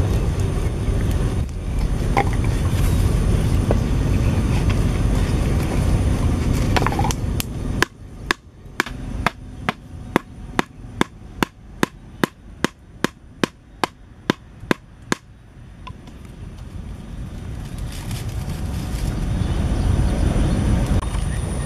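A wooden stake being pounded into packed dirt with a stick: about twenty sharp wooden knocks, two or three a second, starting about eight seconds in and stopping some seven seconds later. Before and after the knocking there is a steady low rumbling noise.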